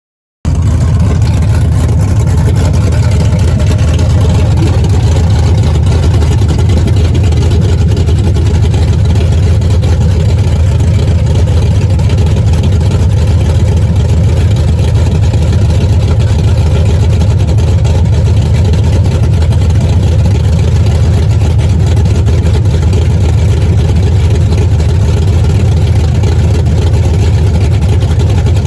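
Loud, steady low rumble of a running engine, starting suddenly just after the start and holding without change.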